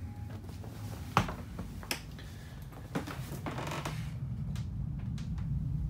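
Scattered clicks and light knocks from someone moving about in a boat's cockpit, over a low steady rumble. A sharp knock about a second in is the loudest, with smaller ones around two and three seconds in.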